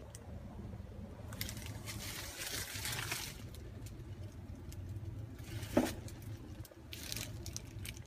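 Handling noise from a handheld camera being moved around inside a car cabin: soft rustling, a few small clicks and one short knock about three-quarters of the way through, over a steady low hum.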